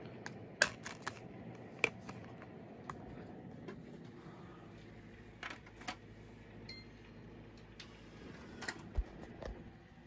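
Scattered sharp clicks and light knocks of a plastic DVD case being handled, over a faint steady hum, with a short faint high beep about two-thirds of the way through.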